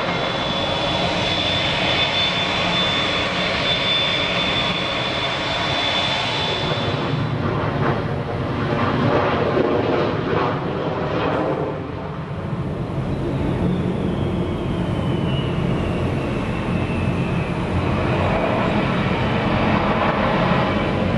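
Jet airliner engines running: a steady high whine over the engine noise, changing after about seven seconds to a rougher takeoff roar, then from about thirteen seconds a whine that slides down in pitch over the low rumble.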